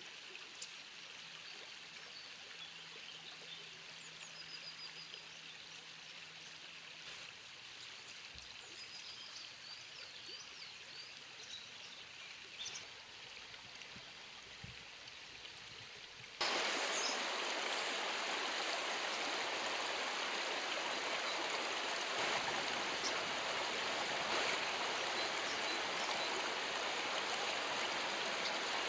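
Shallow, rocky river running over stones: a steady rushing of water that steps abruptly louder a little past halfway.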